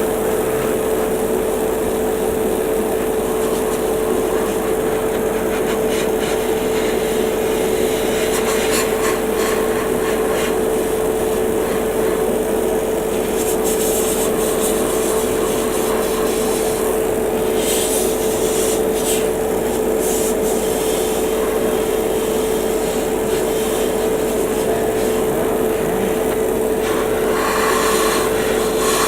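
Spray-booth extractor fan and airbrush compressor running with a steady hum. Airbrush spraying primer hisses in short bursts a few times, notably around halfway and near the end.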